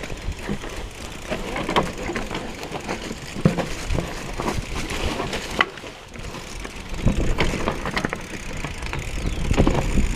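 Mountain bike riding over a rough, rocky dirt trail: tyres crunching over stones, with frequent sharp clacks and rattles from the bike over a steady low rumble.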